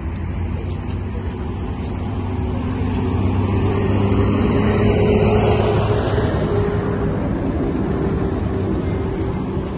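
Engine of a large coach bus running, a steady low hum that swells to its loudest about five seconds in and then eases.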